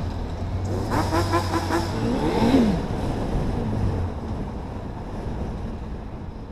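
Quad bike engine running under way, revving up and back down about two and a half seconds in; the sound then gradually fades.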